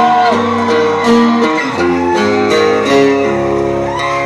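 Acoustic guitar playing a chord progression as a live song intro, the chords changing about every half second over a low sustained bass note.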